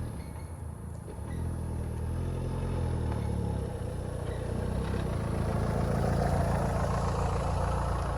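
A motor vehicle's engine running as it drives along, its pitch drifting up and down with a rough rumbling noise that grows louder over the last few seconds.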